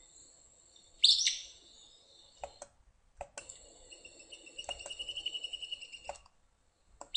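Acadian flycatcher giving its sharp, insistent two-syllable "pizza" call, once about a second in and again at the end, with a rapidly pulsing high trill in between and a steady insect whine behind it.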